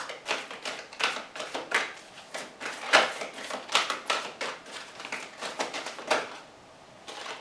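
A deck of oracle cards shuffled overhand by hand: quick, irregular taps and snaps of card on card, several a second, with a short pause near the end.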